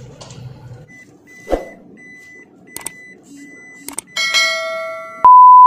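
Electronic sound effects: a run of short high beeps about a second in, a chime of several held tones near the end, then a loud, pure steady beep tone that cuts in abruptly.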